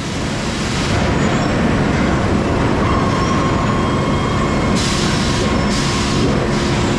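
Electric welding arc crackling and sputtering as steel frame pieces are welded, with the arc brightening in two stretches near the end.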